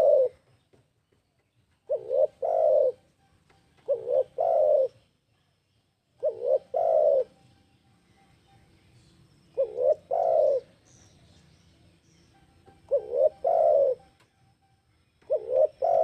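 Spotted dove (tekukur) cooing over and over. Each phrase is two or three short coos followed by a longer, drawn-out one, repeating every two to three seconds. Faint high chirps from other birds are heard in the gaps.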